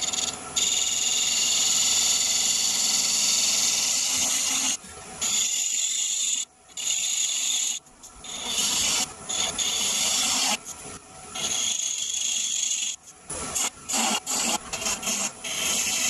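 Gouge cutting eucalyptus spinning on a wood lathe: light shaping cuts, a steady hiss of shavings broken by brief pauses as the tool comes off the wood, turning into quicker short cuts near the end.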